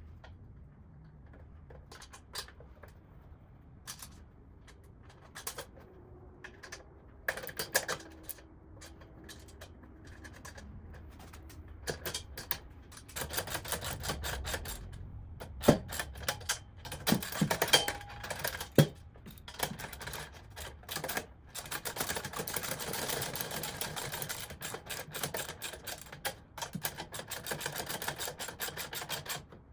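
Steel tool-cart parts clinking as a corner brace is bolted on: scattered metal clicks at first, then from about halfway dense rapid clicking and rattling with a few sharp knocks.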